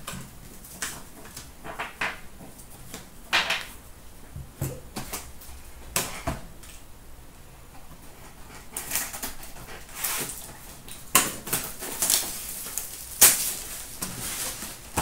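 Trading cards and their cardboard packaging being handled and sorted: irregular taps, slides and crinkling rustles, busier and louder in the last third.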